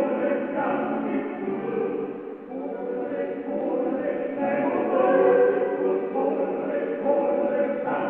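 Background music of a choir singing long, sustained chant-like chords.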